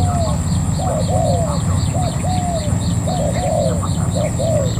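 Spotted doves cooing: short arched coos repeated in quick pairs and threes, over a steady high whine and a low rumble.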